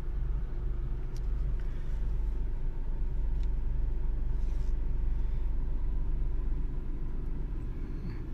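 Steady low rumble of a car heard from inside its cabin as it rolls slowly forward, with a faint steady hum over it.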